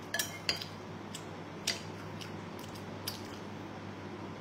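A person chewing a mouthful of rice, with a few sharp short clicks over a steady low hum.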